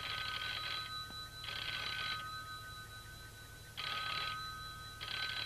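Telephone bell ringing in a double-ring pattern: two rings in quick succession, a pause, then two more.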